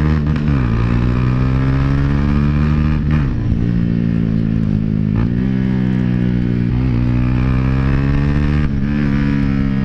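Dafra Next 250's single-cylinder engine running under way through a loud aftermarket Jeskap GP Carbon exhaust. The note climbs slowly, then dips sharply about four times.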